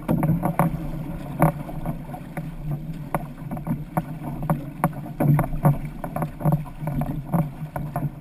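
Outrigger canoe under way as the crew paddles: water rushing along the hull, with irregular splashes and knocks, a few a second, from paddle blades catching the water and striking the hull.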